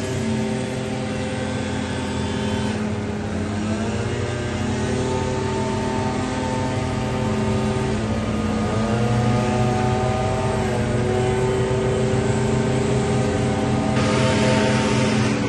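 Gas-powered backpack leaf blowers running, several engines at once, their pitch rising as they rev up about three seconds in and again about eight seconds in. A rushing hiss grows louder near the end.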